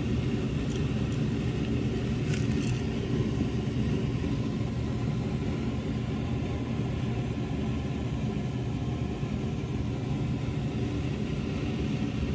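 A motor running with a steady low hum and rumble, with a few light ticks about two seconds in as crushed peanuts are shaken from a glass jar onto the bowl.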